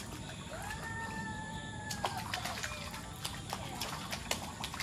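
Toddlers splashing lightly in shallow pool water, a scatter of small splashes and drips. About half a second in, a child's high voice holds one long note for about a second and a half.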